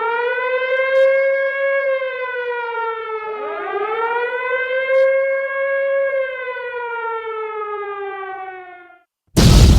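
Air-raid-style siren sounding two long wails, each rising, holding and then falling in pitch. Just before the end it gives way to a loud explosion.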